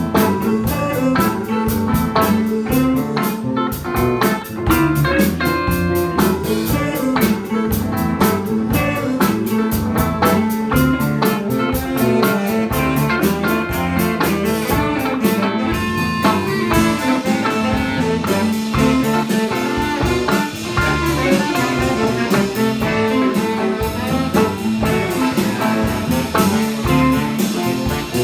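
Live band music: a baritone saxophone playing over a drum kit and the rest of the band, with the cymbals and high end brighter from about halfway in.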